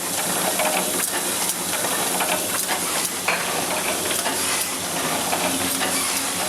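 1975 Muller Martini HB 35 automatic book sewing machine running: a steady hiss with continual rapid mechanical clicking and clatter.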